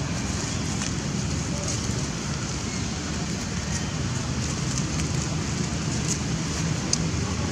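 Steady outdoor background noise: a low rumble of wind on the microphone under a constant hiss, with a few faint high ticks near the end.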